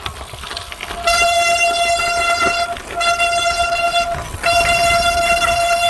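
Brand-new Shimano Ultegra bicycle disc brake squealing loudly under braking: a steady high shriek that starts about a second in and breaks off twice briefly, three squeals in all. It is the typical squeal of a new disc brake's pads on the rotor.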